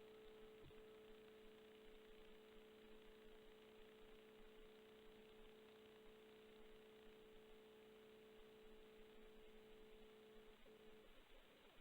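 Near silence: a faint, steady electrical hum, one clear tone with a weaker lower one beneath it, over light hiss.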